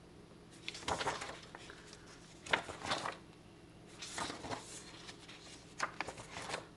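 Paper pages of a spiral-bound planner being turned by hand: four separate rustling page flips, about a second and a half apart.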